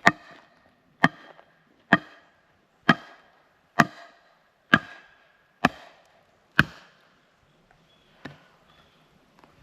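A hammer striking the mailbox post to seat it into its ground anchor: eight sharp blows about once a second, each with a brief ring, then a lighter tap near the end.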